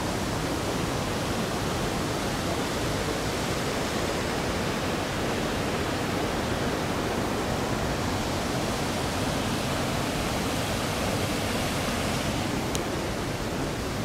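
Steady rush of a mountain waterfall pouring white water over rock into a pool, with one small click near the end.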